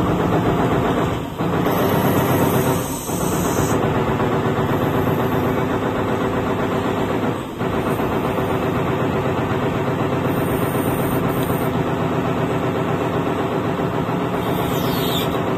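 CNC 46C machine running while machining workpieces: a loud, steady, dense mechanical rattle, with a few brief dips in the first half and a sudden drop at the very end.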